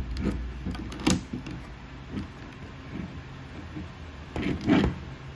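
Hands handling a plastic transforming robot toy while posing it: a few sharp plastic clicks and knocks, the loudest about a second in, and a louder burst of handling noise about four and a half seconds in, over a steady low hum.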